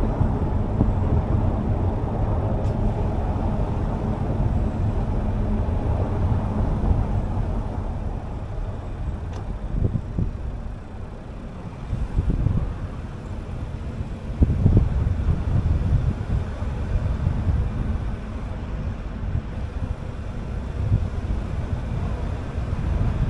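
A car being driven, its engine and road noise making a steady low rumble. A low hum runs through the first few seconds and then fades, the noise drops for a moment about halfway through, and it grows louder again soon after.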